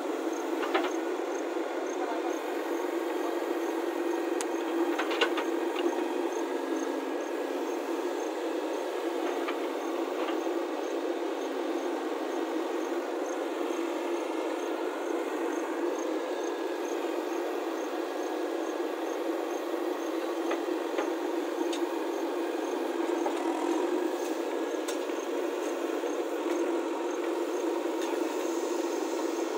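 JCB backhoe loader's diesel engine running steadily under load while the excavator arm digs a trench, with a few sharp knocks.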